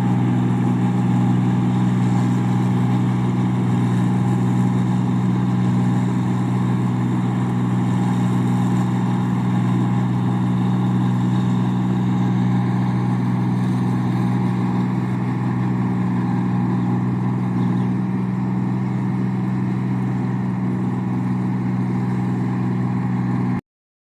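Engine of a rice paddy machine running steadily at constant speed, an even low hum. It cuts off abruptly near the end.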